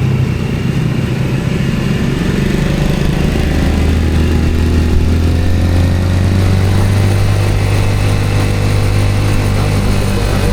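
Motor vehicle engine running on the move with road and wind noise. The hum steadies about three seconds in and then rises slowly in pitch as the vehicle picks up speed.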